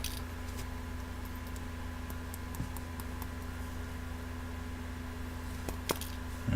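Faint, scattered small metallic clicks from handling the opened brass padlock, with two sharper clicks near the end, over a steady low hum.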